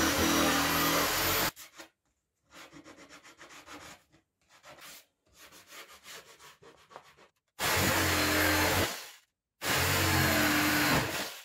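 Corded electric jigsaw cutting plywood, which stops about a second and a half in. Then quick back-and-forth rubbing strokes, the plywood's cut edge being sanded by hand. The jigsaw then cuts again in two runs, one at about eight seconds and one from about ten seconds, stopping just before the end.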